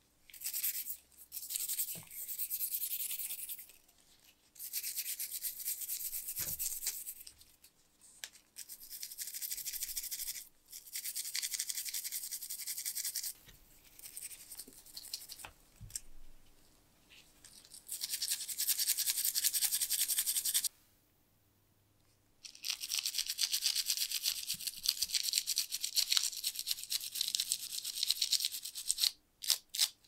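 Small brass wire brush scrubbing rust off wet steel parts of an Imco spark lighter, in spells of rapid back-and-forth strokes a few seconds long, broken by short pauses.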